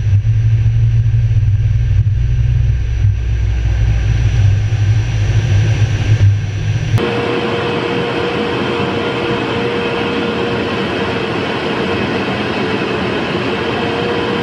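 Tornado GR4 jet engine noise, presumably its twin RB199 turbofans. A deep low rumble runs for about seven seconds, then cuts suddenly to a steady engine roar with a whine that slowly rises in pitch near the end.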